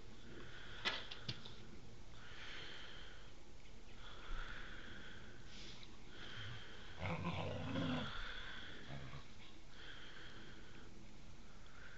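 Two huskies play-fighting, with play growls and grumbling noises, and a louder burst of growling about seven seconds in.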